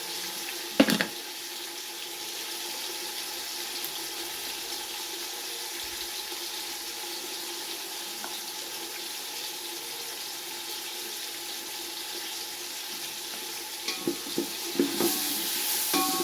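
Tomatoes sizzling steadily in hot oil in a cooking pot. There is a sharp knock about a second in, and a few short knocks of a utensil against the pot near the end.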